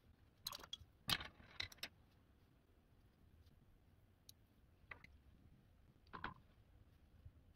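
Quiet room broken by light clicks and knocks: a quick cluster of them about a second in, then a few faint single clicks later.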